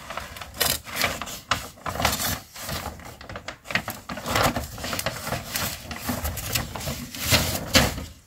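Crinkly brown packing paper rustling and tearing as a parcel is unwrapped by hand: a dense run of quick, irregular crackles.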